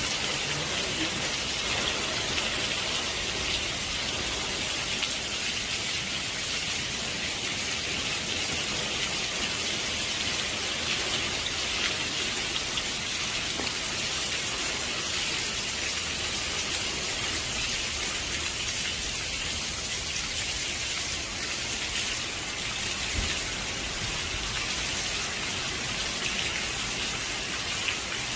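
Torrential hurricane rain falling hard, a steady unbroken hiss.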